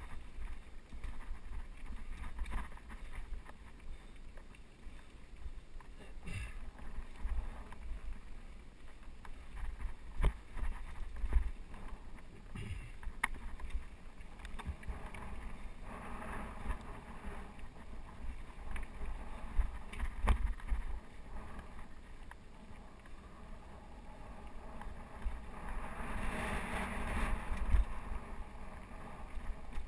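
Mountain bike riding rocky dirt singletrack: a steady low rumble of tyres and wind on the microphone, broken by several sharp knocks and rattles as the bike hits rocks. Near the end a louder rushing stretch sets in as the trail runs through close brush.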